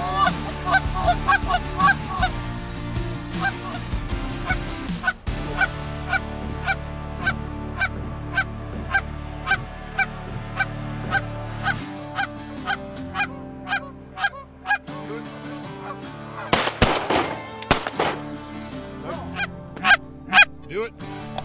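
A flock of Canada geese honking, short calls repeated about three a second, with a burst of louder sharp sounds about seventeen seconds in.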